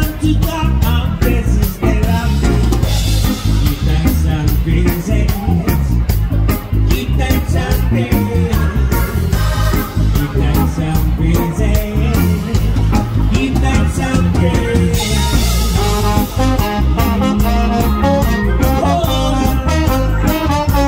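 Live reggae band playing loud through a PA: bass guitar, electric guitar and keyboard under a lead singer, with trombone and saxophone joining near the end.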